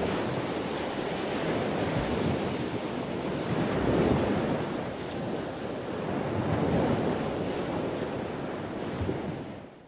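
Sea surf breaking and washing onto a rocky shore, a steady rush that swells about four and seven seconds in, with wind rumbling on the microphone; it fades out at the very end.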